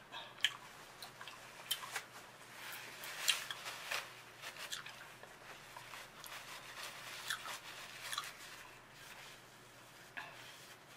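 Quiet gum chewing with scattered small mouth clicks and smacks, along with soft rustling as a white wipe is unfolded.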